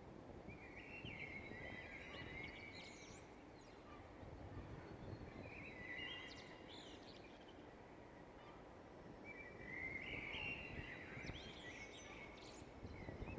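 A bird singing faintly, repeating a short warbled phrase three times about four seconds apart, over a steady low background rumble.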